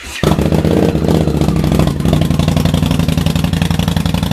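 2015 Indian Scout's liquid-cooled V-twin fired up through a full Vance & Hines Hi-Output Grenades exhaust: a brief crank, the engine catches right at the start, then runs at a loud, steady idle with evenly spaced exhaust pulses.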